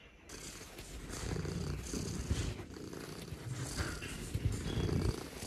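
Abyssinian cat purring close to the microphone, the purr swelling and fading over and over.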